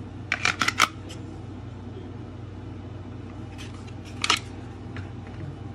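Hard plastic gun holster clicking and clattering as it is handled and set down on a desk: a quick run of about four sharp clicks about half a second in and a few more around four seconds in, over a steady low hum.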